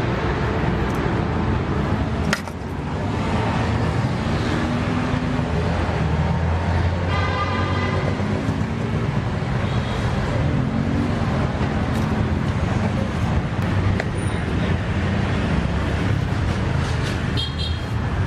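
Steady street traffic noise from passing vehicles, with a sharp click about two seconds in and a short pitched tone near the middle.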